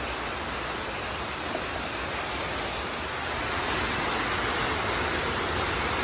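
Steady rushing of falling water from a waterfall or cascade, getting slightly louder about three seconds in.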